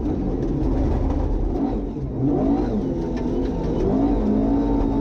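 Ford Escort RS 2000 rally car's engine heard from inside the car at full stage pace. The revs dip briefly about two seconds in, then climb again and hold high.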